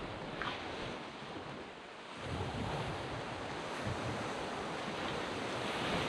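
Sea waves breaking and washing up on a sand beach. A wave surges in about two seconds in and builds to its loudest near the end.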